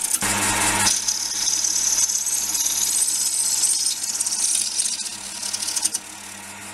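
A scraper cutting a spinning ash bowl blank on a 370 W wood lathe: a steady hissing scrape over the lathe's constant motor hum, with a heavier, rougher cut in the first second. About six seconds in the cutting stops and only the motor hum remains.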